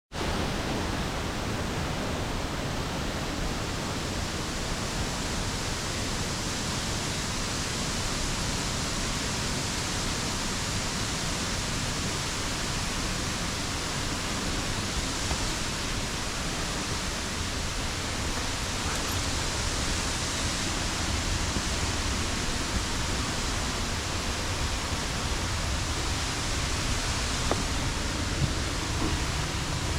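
Steady rush of falling water from a mountain waterfall, an even unbroken noise, with a few faint clicks near the end.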